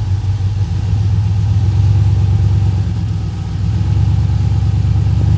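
Off-road vehicle's engine running steadily at low revs, easing off briefly about three seconds in and then picking back up.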